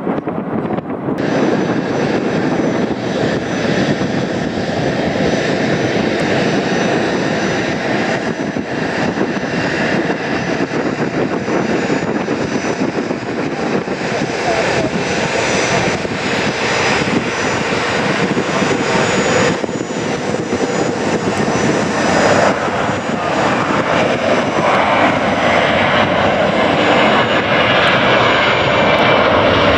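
Jet aircraft engines running close by: a steady rush with a high whine on top that starts about a second in, growing gradually louder toward the end.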